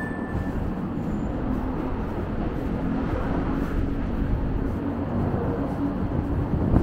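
Steady low rumble of city traffic, with a faint engine hum midway and a brief knock at the end.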